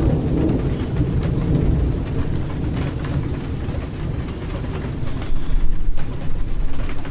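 Rainstorm: low rolling thunder over a steady hiss of rain, the rumble easing off and then swelling again about five seconds in.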